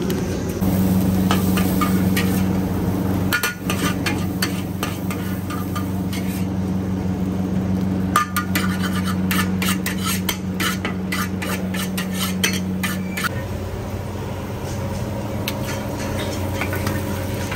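A metal ladle scraping and clinking against a large iron wok in quick runs of strokes, over a steady low hum that stops about two-thirds of the way through.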